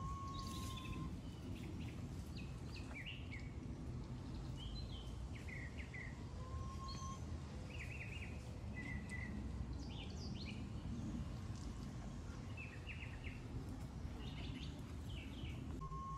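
Outdoor ambience of small birds chirping and calling on and off over a steady low rumble, with a held, whistle-like tone about a second long at the start and again about six seconds in.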